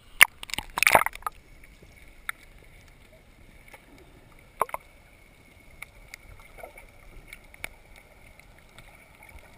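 Water splashing over the camera as it plunges under the surface in the first second or so, then muffled underwater quiet with a few scattered sharp clicks, the loudest about halfway through.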